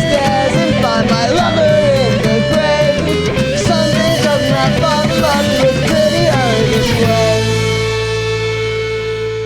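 Instrumental ending of a rock song: a gliding, bending lead guitar melody over a band with drums, which stops about seven seconds in on a held chord that rings out and fades.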